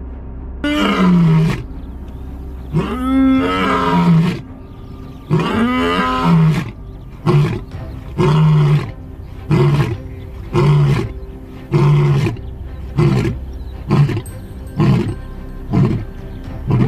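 Male lion roaring: three long roars, then a series of shorter grunting calls about one a second, each shorter than the last. This is the usual run of a full lion roaring bout.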